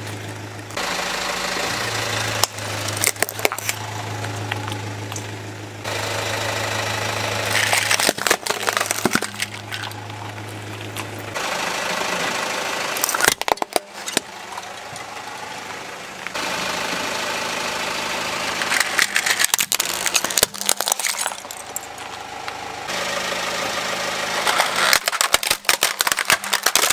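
A car engine runs at idle while its tyre rolls over plastic toy cars, with many sharp cracks and snaps of breaking plastic. The sound changes abruptly several times between takes, and a steady low hum is heard only in the first half.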